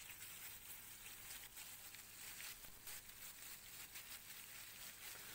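Whole pomfret frying in hot oil in a pan: a faint, steady sizzle with fine crackles.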